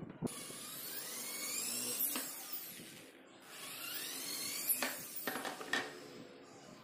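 Corded electric hand drill boring into a plywood board in two runs, its whine rising in pitch each time as the motor speeds up. A few sharp knocks come near the end.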